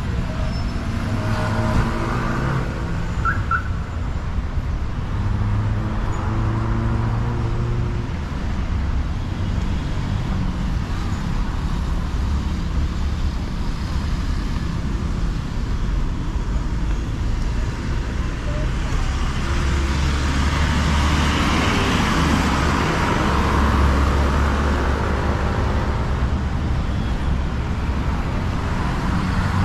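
Car running in city traffic: a steady engine and road rumble, with a louder swell of tyre and road noise about twenty seconds in.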